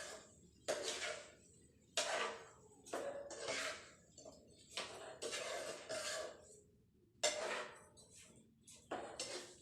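A spoon scraping and knocking against cookware in a series of short strokes, roughly one a second, as sugar is tipped into the simmering chutney pan.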